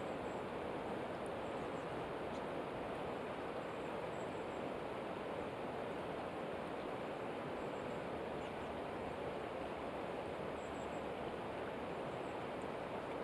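Flowing river water: the current running over a shallow, rocky bed makes a steady, even rush.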